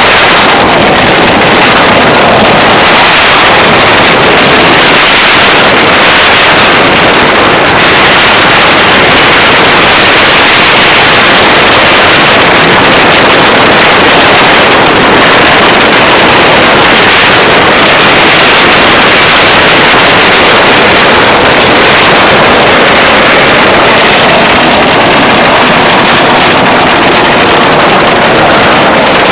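A long, continuous barrage of firecracker strings, the crackling packed so densely that it merges into one loud, unbroken noise.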